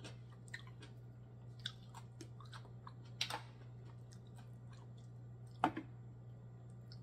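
Close-miked chewing of black mussels, with scattered small clicks and two sharper clicks about three and five and a half seconds in. A steady low hum runs underneath.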